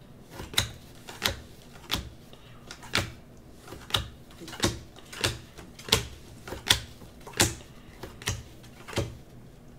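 Unparalleled football trading cards being flipped through one at a time, each card slid off the stack with a short crisp click, in a steady rhythm of about one every two-thirds of a second.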